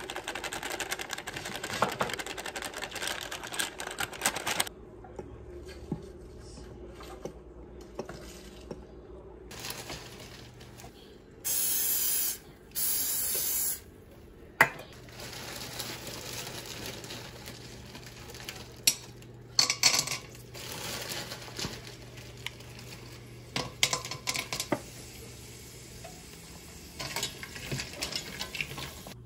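Kitchen cooking sounds: a utensil stirring in a bowl, then two short bursts of aerosol cooking spray about a second apart, then scattered clinks of utensils against dishes and pans.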